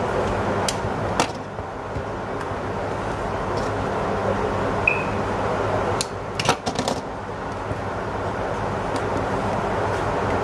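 Hands handling a small cardboard smartwatch box and cutting off its plastic wrap: scattered clicks and taps, with a cluster of sharp ones about six to seven seconds in and a brief high squeak near five seconds. Under them runs a steady hum and hiss of room noise.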